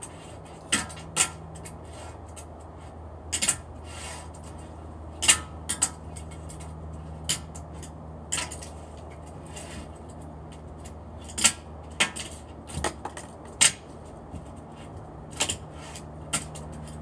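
Tech Deck fingerboards clacking on a glass tabletop: sharp, irregular clicks and taps, about a dozen, as the little boards are popped and landed, over a steady low hum.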